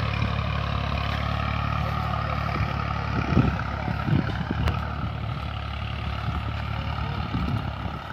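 Massey Ferguson 240 tractor's three-cylinder diesel engine running steadily under working load as it cultivates between orchard rows, a low continuous hum with a few louder surges a little past the middle.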